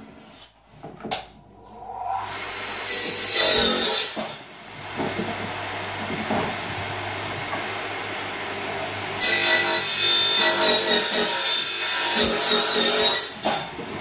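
Radial arm saw starting up about two seconds in and running steadily, then cutting across a softwood brace for about four seconds near the end.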